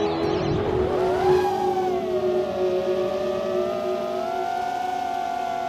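Brushless motors and propellers of a Lumenier QAV-S FPV quadcopter, with 2306.5-size 2000 kV motors, whining in flight. The pitch climbs about a second in, sags, then rises again and holds steady.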